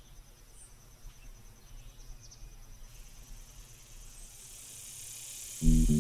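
Insects chirring in a steady, rapid high trill over a low outdoor rumble, with a hiss slowly swelling beneath it; just before the end, loud music with a beat cuts in.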